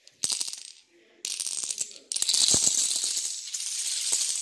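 A chain of dominoes toppling on a tile floor: a rapid clicking clatter that comes in two short runs, then a longer unbroken run from about two seconds in.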